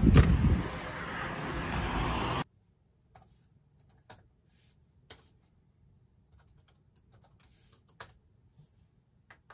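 A heavy thump right at the start with loud, dense sound behind it that cuts off abruptly about two and a half seconds in. After that, faint, irregular clicks of typing on a computer keyboard.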